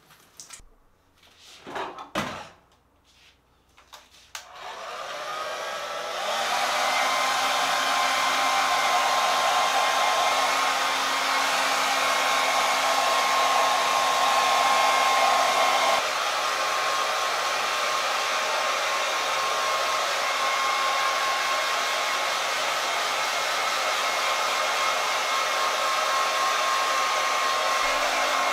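Handheld Vidal Sassoon hair dryer blowing on a wet Pomeranian's coat: it comes on about four seconds in, builds up over the next two seconds, then runs steadily with a constant whine, dipping slightly about sixteen seconds in. Before it starts there is near quiet with a couple of short knocks.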